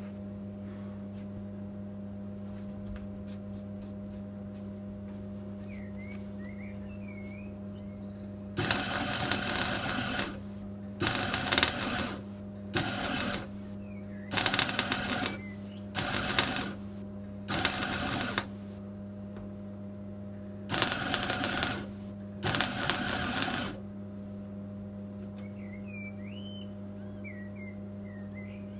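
Clarke 135TE Turbo MIG welder stitch welding steel: eight short bursts of sputtering, crackling arc, each under two seconds, starting about nine seconds in and ending near 24 seconds, seam welding a repair panel in places. A steady electrical hum runs underneath.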